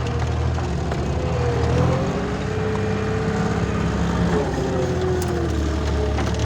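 Diesel engine of a compact earthmoving machine running steadily under work, with a whine that wavers slightly in pitch and a few short clicks near the end.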